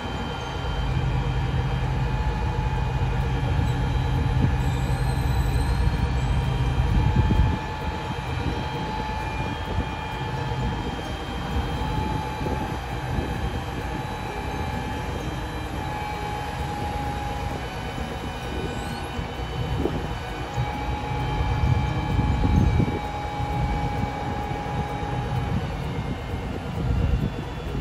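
A mobile crane's diesel engine runs under load as it lowers its hook, with a steady high whine over the rumble. The deep engine rumble eases off about seven seconds in and swells briefly again near the end.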